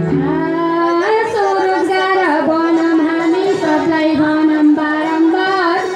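A female voice singing a Nepali Teej folk song, holding long, wavering notes, with little or no instrumental backing.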